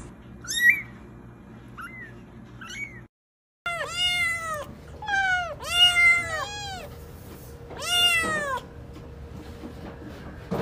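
Kittens meowing. First come three faint, short, high mews from a very young kitten. After a brief break there is a run of about six loud meows that rise and fall in pitch.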